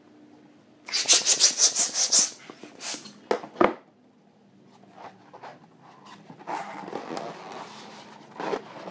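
Hands handling inflated latex balloons, rubbing against them. A quick, loud run of rubbing strokes about a second in, a thump about three and a half seconds in, then softer rubbing near the end.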